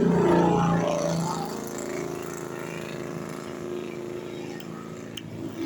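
A bus drives past with its engine running, loudest at first and fading away over a few seconds, with no horn sounded.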